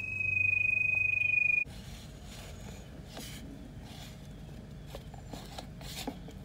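Handheld pipe locator giving a steady high tone that rises slightly in pitch as it picks up the drain camera's sonde through the ground, cutting off abruptly about a second and a half in. Faint ticks and a low hum follow.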